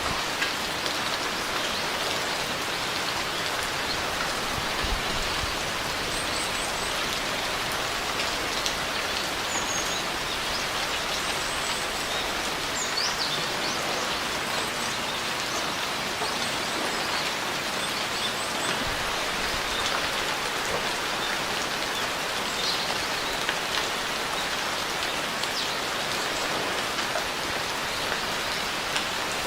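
Steady rain falling on a surface, with individual drops pattering through the even hiss. A few faint high chirps come through in the background.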